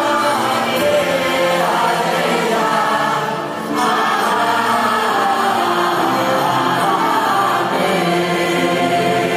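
Large choir singing held lines together with a symphony orchestra of strings and piano.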